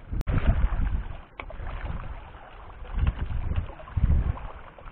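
Choppy sea water slapping against a small outrigger boat and its floats, with wind buffeting the microphone in uneven low gusts. A sharp click comes just after the start.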